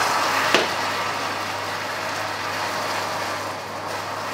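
Hot caramel in a stainless steel saucepan sizzling and spitting as a little water is trickled in to deglaze it. The sizzle is loudest at the start, with a single sharp tick about half a second in, then settles into a steady sizzle that fades slowly.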